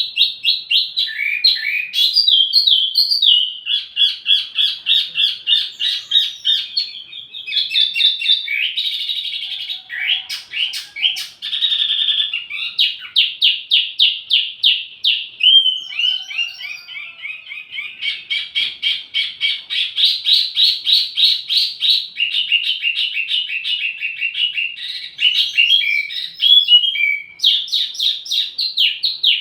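Wambi mini songbird singing a continuous high-pitched song of rapid repeated chipping notes and quick trills, barely pausing, with one short break about halfway through.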